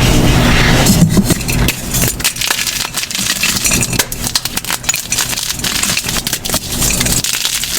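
A block of gym chalk being crushed: a dense run of crisp crackling crunches, heaviest in the first second or so.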